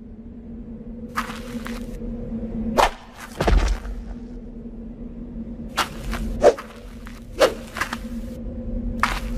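Animation sound effects of skeletons fighting: a string of quick swishes and whooshes with a few sharp knocks and one heavy thud about three and a half seconds in, over a steady low hum.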